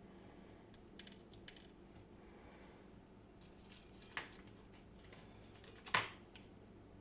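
Small metal clicks and taps from the tiny pins and tools of an ABUS D10 dimple lock being taken apart by hand, as the passive pins are removed and set down. There are a few light clicks about a second in, a cluster around four seconds, and the loudest click about six seconds in.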